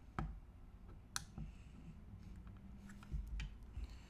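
A few sharp clicks and dull knocks from a metal mortise lock case and hand tools being handled, the sharpest click about a second in.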